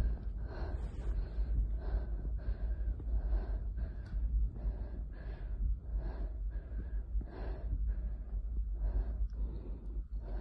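A woman breathing hard and fast close to the microphone, gasping in and out at about one and a half breaths a second. A constant low rumble runs underneath.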